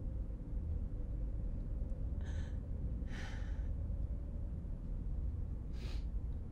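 A woman's breathing: a quick sharp breath about two seconds in, a longer breath out straight after, and another short breath near the end, over a steady low rumble.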